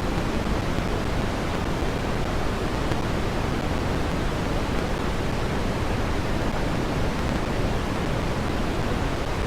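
Synthetic red (Brownian) noise at a steady level: an even, unchanging rumble-like hiss, strongest in the bass and falling away toward the high end, used as a tinnitus masker.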